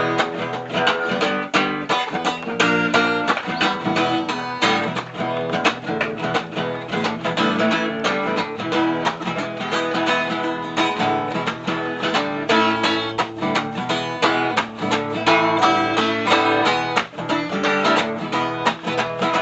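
Acoustic guitar strummed in a steady rhythm: an instrumental passage with no singing.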